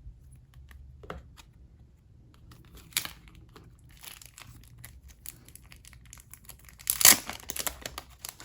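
Plastic packaging crinkling and tearing as a photocard pack is opened and handled, with scattered small clicks; loudest about seven seconds in.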